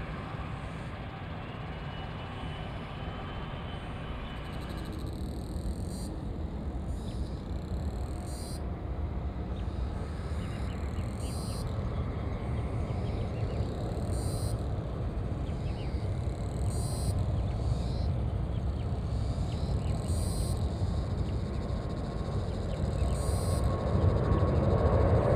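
Twin GE90 turbofan engines of a Boeing 777F freighter spooling up for the takeoff roll. A low rumble grows steadily louder, and a steady whine builds in the second half. A faint high chirp repeats about once a second in the background.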